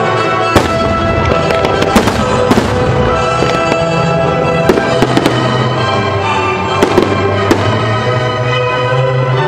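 Fireworks bursting in sharp, scattered bangs, about ten of them, over orchestral music with held notes.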